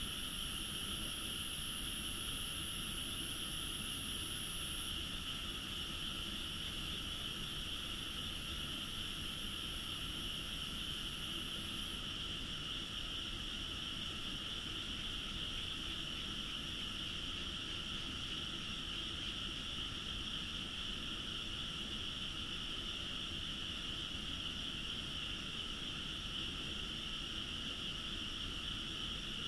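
A dense, steady night chorus of frogs from rice paddies, with a thin high-pitched tone above it that shifts a few times.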